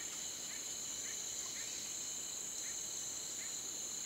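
Steady high-pitched insect chorus, a continuous shrill drone in two bands, with faint short chirps repeating every half second or so.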